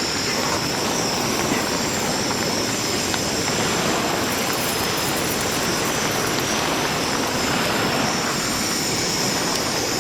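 Cockles cooking in oil in a frying pan over a portable gas burner: a steady hiss with no breaks, as the shells start to open.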